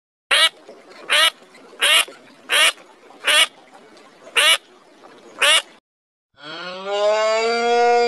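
A duck quacking seven times in short calls, roughly one every three-quarters of a second, followed near the end by a cow mooing in one long call.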